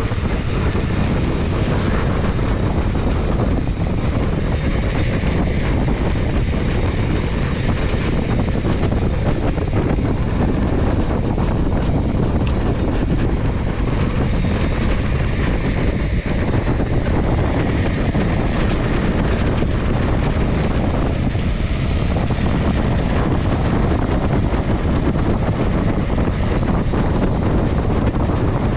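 Steady rush of wind buffeting a camera microphone while riding a mountain bike.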